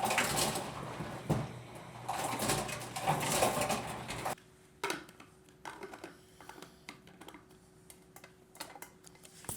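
Ice vending machine running and dispensing ice, a rattling mechanical noise that stops abruptly about four seconds in, leaving faint clicks and a low steady hum.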